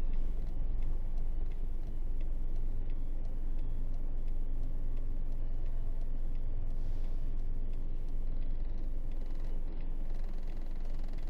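Diesel engine of an Isuzu 8x4 heavy truck running steadily with a low rumble.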